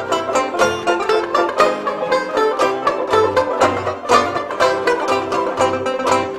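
Upbeat background music of fast plucked-string picking in a bluegrass style, with a low bass note pulsing under it.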